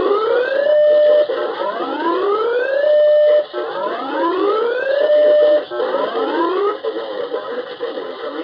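Electronic alarm sounding a whoop tone: each call sweeps up in pitch, holds briefly and cuts off. It repeats about every two seconds, four times, and the last call is cut short.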